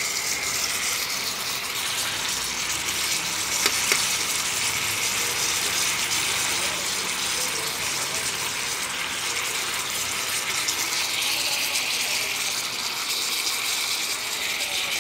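Pork steak bubbling and sizzling in its marinade in a pan, a steady hiss, while a metal spoon stirs it, with two light knocks of the spoon on the pan about four seconds in.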